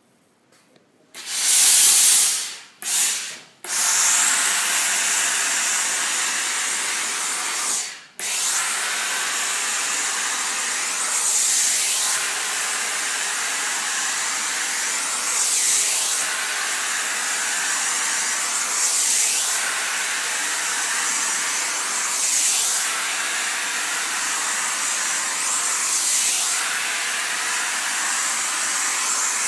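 Handheld garment steamer with a brush head hissing as it puts out steam onto fabric: a few short spurts about a second in, then a continuous hiss with a brief break about eight seconds in, swelling gently every three to four seconds.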